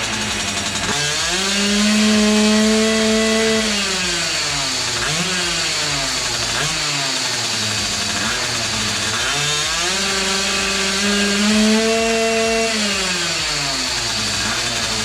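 Small 39cc air-cooled two-stroke mini quad bike engine revving: twice it climbs to high revs, holds for a few seconds and drops back, with short blips of the throttle in between. The builder thinks it is probably running too lean.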